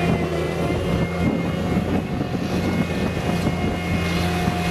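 Diesel engine of a tracked drainage plow running steadily, with a rough, uneven noise over its drone.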